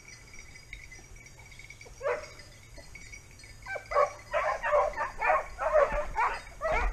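Hare-hunting hounds baying: one call about two seconds in, then a rapid run of barks from about four seconds on.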